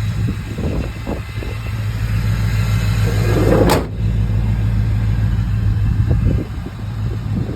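1988 Chevy K1500 pickup's engine running steadily through a Borla dual exhaust, with a brief sharp noise about halfway through.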